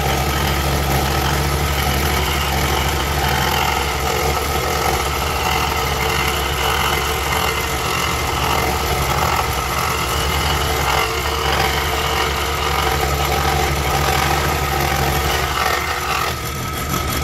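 Woodstar SD 16 scroll saw running steadily with a low hum, its blade cutting through a hand-fed piece of wood.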